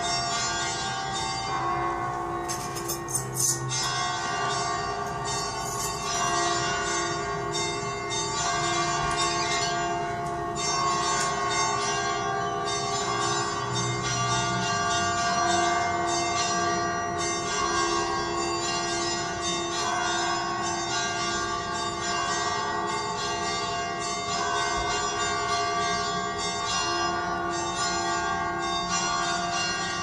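Church bells ringing continuously, their strikes overlapping into a dense, steady peal. A few short clicks sound about three seconds in.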